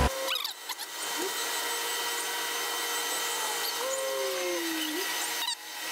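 CNC mill tapping an M5 thread in a bicycle hub shell's disc flange, with coolant hissing as it sprays against the enclosure door. A machine whine drops in pitch about four seconds in, and the noise dips briefly near the end.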